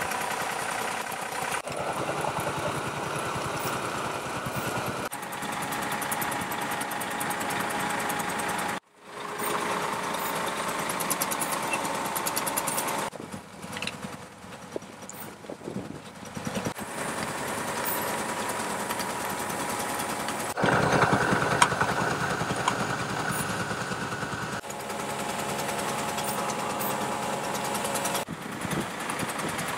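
Engines of asphalt-surfacing machinery running steadily. The sound jumps in level and pitch every few seconds as one shot gives way to the next, with a brief gap about a third of the way in and a quieter stretch near the middle.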